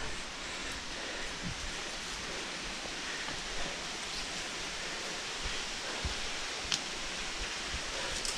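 Steady rushing of water from a waterfall, with footsteps on a dirt forest path and a few short clicks.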